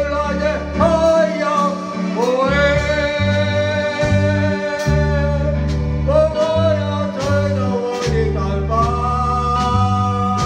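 Live band playing a Chinese song: a sung melody of long, wavering held notes over a steady bass line and drum beat.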